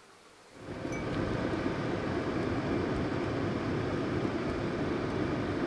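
Steady road and engine noise of a kei car driving, heard from inside the cabin, cutting in suddenly about half a second in.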